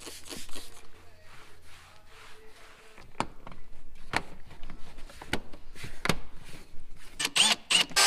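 Plastic interior trim of a Mitsubishi 3000GT being wiped and fitted into the door sill by hand: scattered light clicks and knocks, with a few sharper strikes later on.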